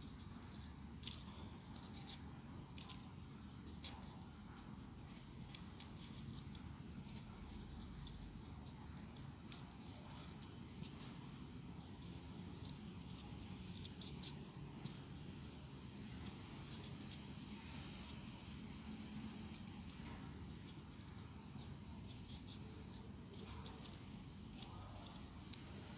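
Folded paper units of a 3D origami model being handled and pressed together, making faint irregular crinkles and small clicks over a low steady room hum.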